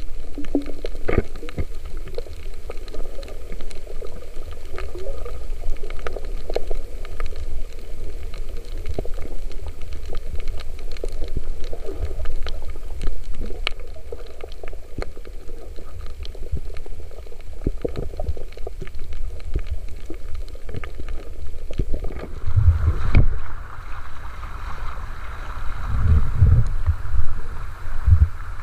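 Underwater sound through a camera housing: a low rumble of moving water with scattered clicks and crackles. About 22 seconds in it switches to the surface, where wind buffets the microphone over choppy sea in heavy low thumps.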